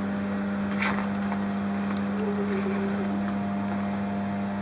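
Steady electrical hum with a low tone and a stronger one an octave above, the kind of mains hum given off by the transformers of a power substation.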